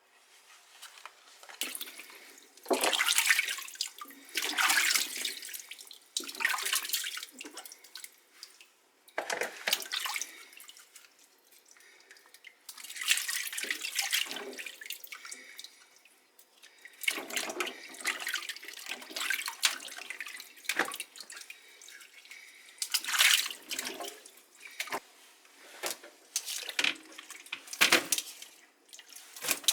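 Water running and splashing in a sink in short spells, stopping and starting about a dozen times.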